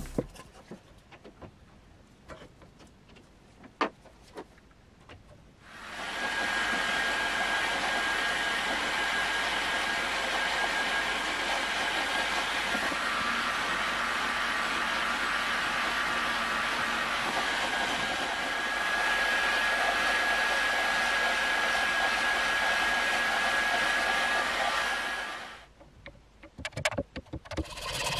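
Hot air gun blowing steadily, heating a Plexiglas strip to soften it for bending. It switches on about six seconds in and cuts off a few seconds before the end, with a steady high whine over the rush of air; a few light handling clicks come before it starts and after it stops.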